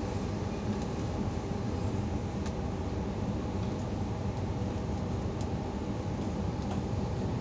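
Steady low running noise of a Sydney Trains H set (OSCAR) electric double-deck train travelling along the line, heard inside a carriage, with a few faint clicks.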